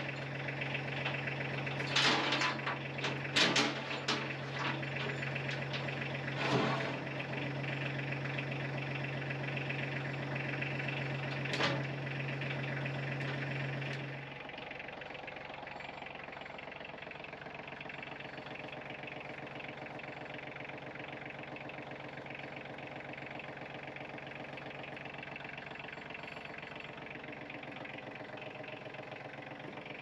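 Compact tractor engine running steadily, with several sharp knocks over the first dozen seconds. About fourteen seconds in the deep hum drops away, and a quieter steady engine sound carries on.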